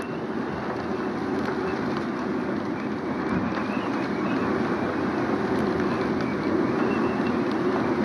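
Strong wind rushing over a sailboat's foredeck in heavy weather, buffeting the microphone in a steady roar.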